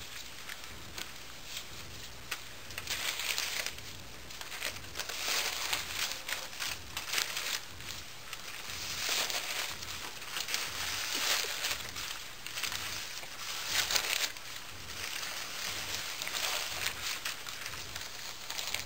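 Paper dollar bills rustling and crinkling as handfuls are tossed and swept around, in uneven swishes every second or two.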